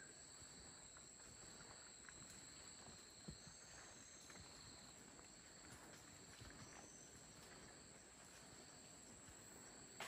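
Faint rainforest insect chorus: two unbroken high-pitched drones, one above the other, held steady throughout. Soft footsteps on leaf litter rustle underneath.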